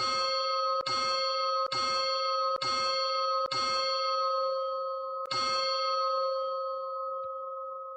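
A bell swinging on its yoke, its clapper striking a little more than once a second; after one skipped beat a last strike comes about five seconds in, and the bell then hums on, slowly fading.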